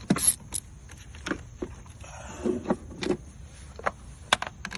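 Irregular metal clicks and knocks of a ratchet and 10 mm socket working a car battery's terminal clamp loose and off the post.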